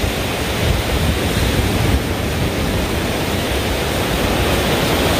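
Steady rush of surf on a sandy beach, mixed with wind buffeting the microphone in an uneven low rumble.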